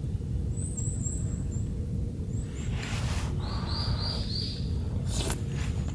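Small birds chirping: a few quick high chirps about a second in, then a run of four or so repeated notes around the middle, over a steady low rumble of outdoor ambience, with a couple of brief rustles.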